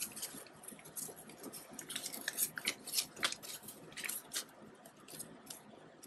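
Paper banknotes rustling and flicking as a stack of US dollar bills is counted through and sorted by hand. A run of quick, crisp flicks, denser in the middle.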